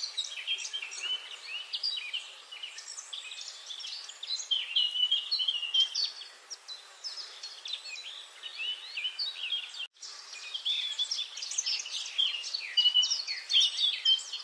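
Many small songbirds chirping and singing at once, a dense chorus of short, quick calls and trills over a light background hiss. The sound cuts out for an instant about ten seconds in.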